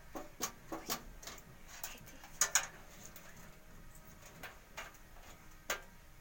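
Irregular light clicks and taps of hands handling a desktop computer's cables and parts during disassembly, with a louder double click about two and a half seconds in.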